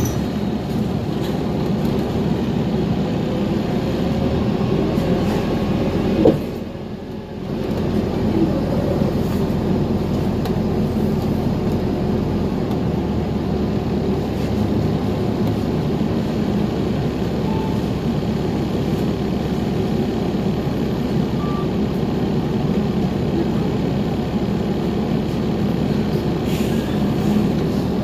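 2021 New Flyer Xcelsior XDE40 diesel-electric hybrid transit bus driving, heard from on board as a steady engine and road rumble. About six seconds in there is a sharp thump, then the level drops briefly before it picks up again.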